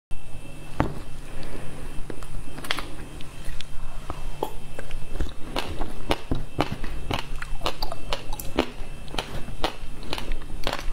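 Chewing and crunching a mouthful of frozen passion fruit ice with its seeds, close to a clip-on microphone: irregular sharp crackles that come thicker in the second half.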